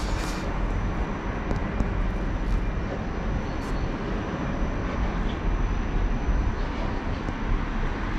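Steady rushing of water as gold-bearing gravel is washed, with a few faint ticks of grit.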